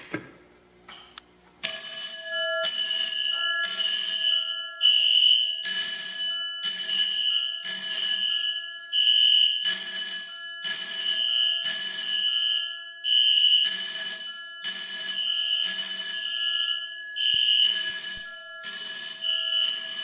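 A button clicks, and about one and a half seconds later a fire alarm system goes into alarm. A Pyrotronics BDC-624 fire alarm bell and other notification devices ring in code 3: groups of three strokes repeating about every four seconds. A steady high electronic tone runs under the whole pattern.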